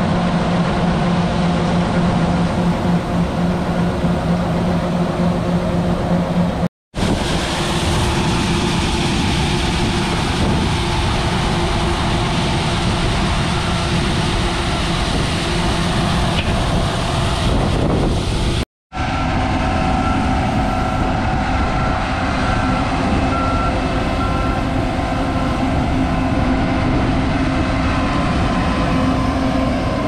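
John Deere combine running while its unloading auger pours shelled corn into a truck: a steady engine and machinery drone with the hiss of falling grain. The sound drops out for a moment twice, about seven and nineteen seconds in.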